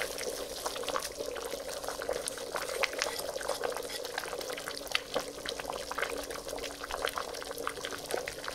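A pot of chicken broth with cabbage simmering, bubbling with many small irregular pops.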